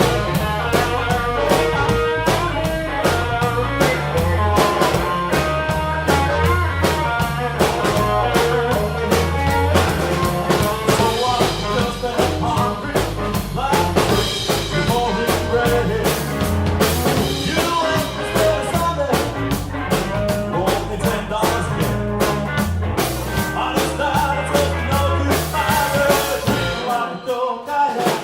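Blues band playing with drum kit, bass and a Seydel blues harmonica. The bass and drums drop out briefly near the end.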